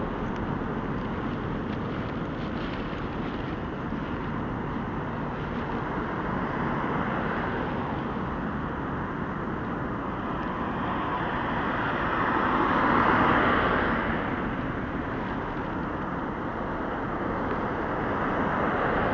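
Steady traffic noise from a busy multi-lane city street, with one vehicle passing close and growing loudest about two-thirds of the way through before fading.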